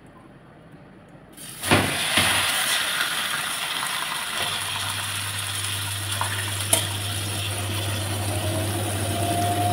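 Whole chicken sizzling as it goes into hot oil in a frying pan, a steady hiss that starts suddenly about a second and a half in. A low steady hum joins about halfway through.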